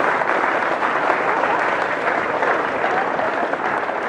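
Large crowd of students clapping steadily, sustained applause.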